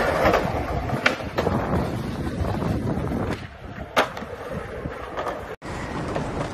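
Skateboard wheels rolling on concrete, with sharp clacks of the board striking the ground, the loudest about four seconds in.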